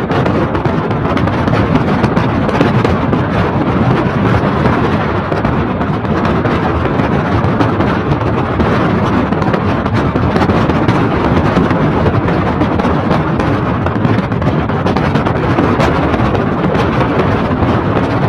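Loud, steady rumble of wind buffeting the microphone at a vehicle's side window, mixed with tyre noise on a wet road, while driving at highway speed.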